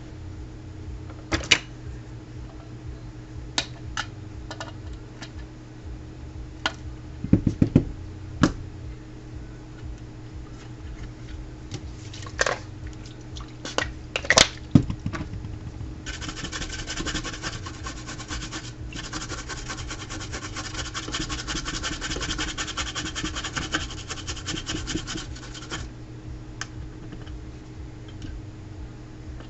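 Work on a circuit board at the bench: scattered clicks and taps of tools on the board, then about ten seconds of rapid scratching and scrubbing on the board, over a steady low hum.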